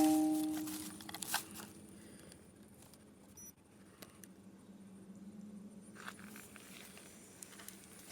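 A chime-like sound effect dies away over the first second or so. After it come faint rustling and scattered light clicks of handling.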